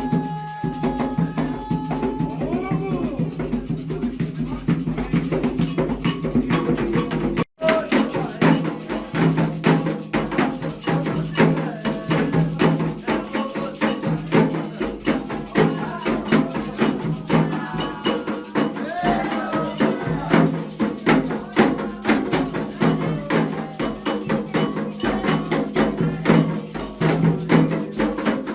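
Candomblé ritual music: fast drumming on hand drums, with a bell or wood-block pattern and voices singing over it. The sound cuts out for an instant about a third of the way through, then carries on.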